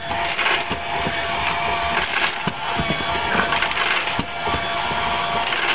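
Automatic pet food dispenser running with a steady motor whine, along with the crunching and rattling of dry kibble as a cat eats from its tray.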